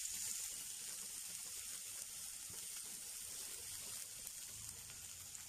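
Freshly added chopped onions sizzling in hot oil in a frying pan: a steady soft hiss that eases off slightly.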